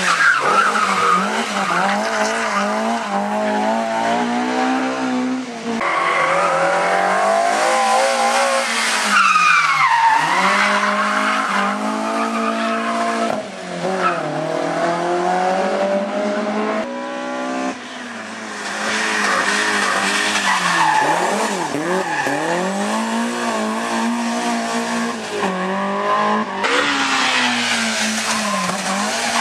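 BMW M3 rally car's engine, heard from inside the car, driven hard: the revs climb and drop again and again through gear changes and lifts off the throttle.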